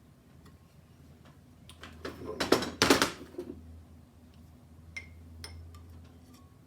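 Thin sheet metal being handled and bent by hand: a burst of rattling and scraping about two to three seconds in, then a few light clicks, over a steady low hum.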